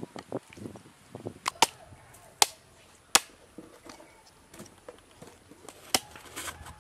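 Large curved knife chopping turkey meat on a wooden log block: several sharp chops at uneven intervals, the loudest between about one and a half and three seconds in and again near the end.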